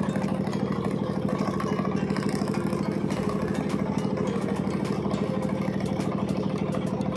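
Boat engine running steadily at low speed with a rapid, even chug. Light clicking comes in from about three seconds in.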